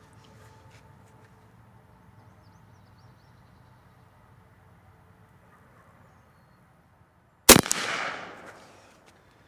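A single shot from a .250 PCP air rifle built on an AirForce Condor frame and tuned to about 130 foot-pounds, firing a 45-grain slug. It is one sharp crack about three quarters of the way in, with an echo trailing off over about a second and a half.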